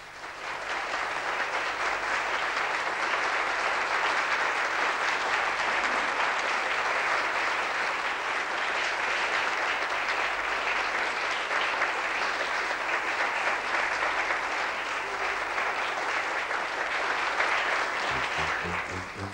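Audience applauding steadily after a tap-dance number, stopping near the end.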